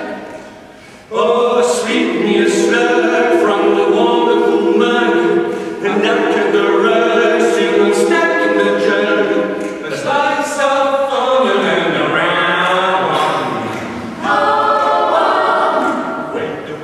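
Mixed a cappella vocal group of eight men and women singing in close harmony. After a brief quiet moment the voices come in together strongly about a second in and hold full chords. About two-thirds of the way through, a phrase slides downward before the group comes back in strongly.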